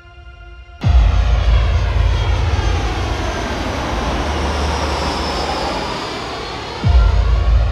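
Airbus A320-family jet airliner flying low overhead: a loud jet roar with a swirling, phasing hiss cuts in about a second in and slowly fades as it passes. Background music returns with a deep bass hit near the end.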